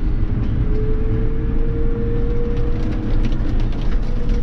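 Tractor engine running steadily under way, heard from inside the cab, with a thin steady whine that rises slightly in pitch about a second in.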